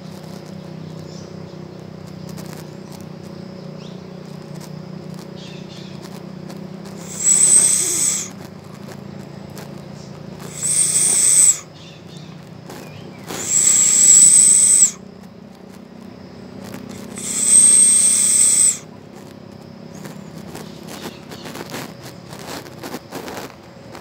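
An animal calling four times with a loud, high, hissing whistle, each call lasting one to two seconds, over a low steady background hum.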